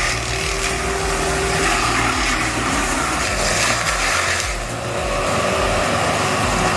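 Heavy forestry machine running loudly and steadily, shredding wood, under background music with a thumping bass beat.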